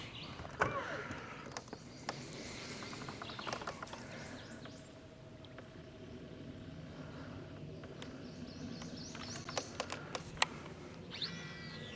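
Quiet river ambience with birds calling and chirping from the trees, a faint steady hum through the middle, and a few sharp clicks near the end.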